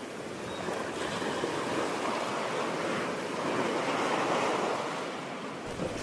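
Waves washing in: a steady rushing noise that slowly swells and eases.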